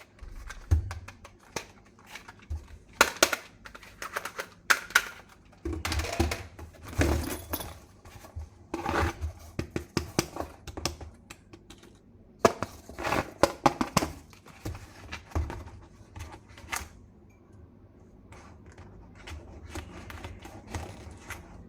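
Hands handling a plastic toy gun and its packaging: an irregular string of plastic clicks, knocks and rustles, sparser and quieter in the last few seconds.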